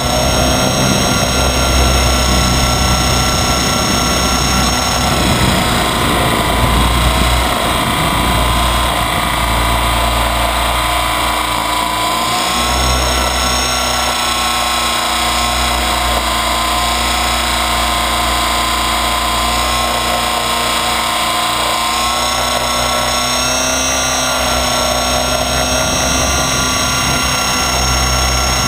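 Align T-Rex 550 electric RC helicopter heard from on board: a steady whine of the brushless motor and drive gears over the drone of the rotor blades, its pitch wavering slightly, with a low rumble of wind that swells and fades.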